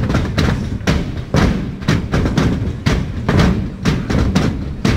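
Steady rhythmic percussion: heavy thumps at about two to three a second, with a low rumble between the strokes.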